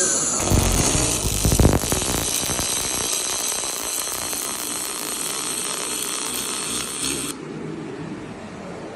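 Fiber-laser welding robot at work on stainless steel: a steady high hiss with fine crackling, with a low rumble in the first two seconds, that cuts off suddenly about seven seconds in.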